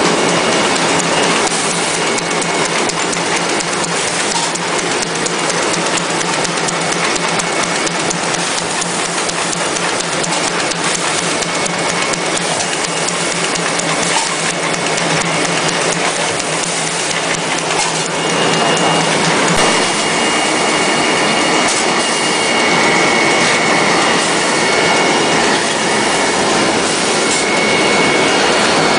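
Facial tissue making machine running at speed: a loud, dense, steady mechanical clatter. A thin, high steady whine joins in about two-thirds of the way through.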